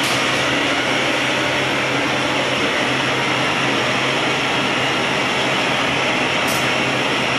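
Hand-held propane torch burning with a loud, steady rushing hiss, over a low steady hum.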